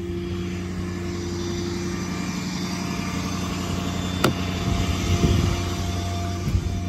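Ford 6.7 Power Stroke V8 diesel idling with a steady low hum. There is a sharp click about four seconds in and a few light knocks a second later.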